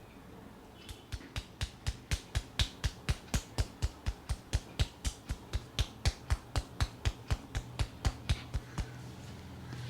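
A barber's hands slapping rhythmically on a head during an Indian head massage: an even run of about four strikes a second, each a dull thump with a sharp slap, starting about a second in and stopping shortly before the end.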